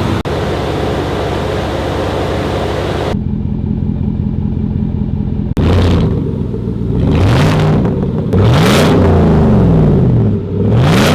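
Chevy Silverado pickup engine running. After an abrupt change about three seconds in, it idles steadily, then is revved up and let fall back several times in quick succession.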